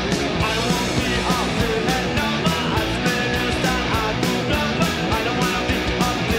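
Fast punk rock music with electric guitars and a fast, steady drumbeat.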